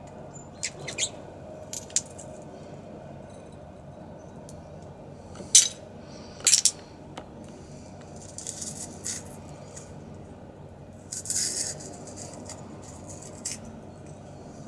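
Broken drinking-glass shards clinking and scraping, a few sharp clinks with the loudest pair near the middle and scratchy crunching later, as glass pieces knock against each other and the concrete.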